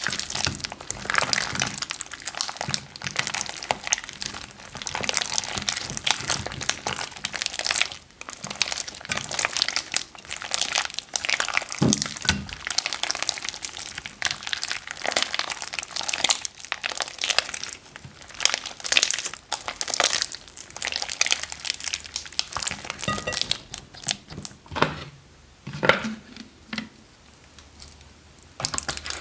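Plastic bags with slime in them crinkling and rustling as they are handled, a dense run of crackles that thins out and goes quieter near the end.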